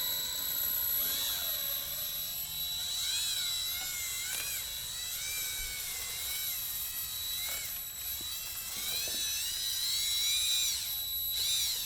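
Electric drill-driver spinning a flexible dryer-vent cleaning rod and brush inside the duct. The motor whines steadily, its pitch wavering up and down as the brush meets drag.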